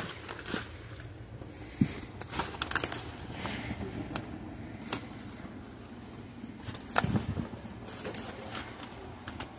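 Dry twigs and branches crackling and snapping underfoot in brush and flood debris: irregular sharp cracks, a cluster of them a couple of seconds in and a heavier thud about seven seconds in.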